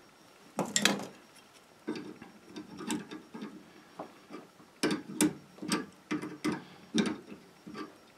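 Adjustable wrench clicking against a brass compression nut as it is turned in short strokes, tightening a plastic ice-maker water line onto a saddle valve. Light irregular clicks at first, then about two a second in the second half.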